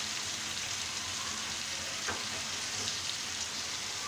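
Pieces of tilapia frying in oil with bitter gourd in a pan, sizzling with a steady crackle. A single light tap about two seconds in.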